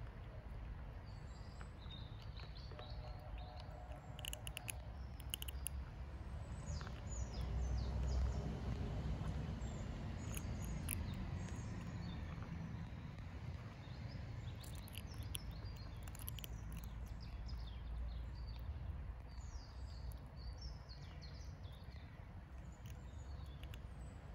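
Small birds chirping repeatedly in short downward-sweeping calls over a steady low background rumble, with scattered sharp clicks of kittens crunching dry kibble.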